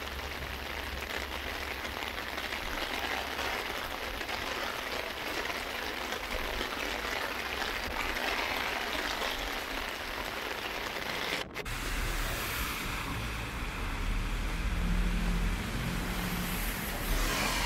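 Heavy rain falling steadily on pavement and shrubs, an even hiss. After a brief dropout about eleven seconds in, the rain continues with a low rumble underneath.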